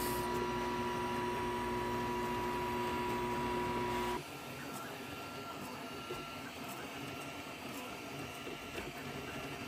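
Flashforge Adventurer 5M 3D printer printing at its full actual speed, with a steady whine over the running of the fast-moving print head. About four seconds in the sound cuts to a quieter, steady running with faint short tones.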